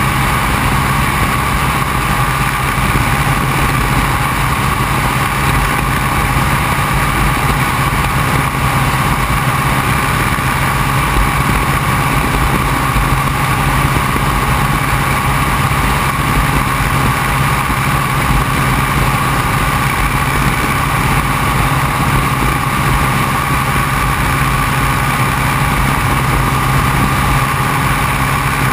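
Open-cockpit biplane's piston engine and propeller droning steadily in cruise flight, with wind buffeting the microphone.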